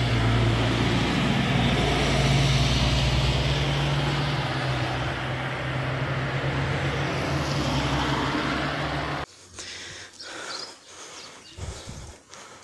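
Road traffic running steadily, vehicle engines and tyre noise, cutting off suddenly about nine seconds in, after which only faint scattered clicks remain.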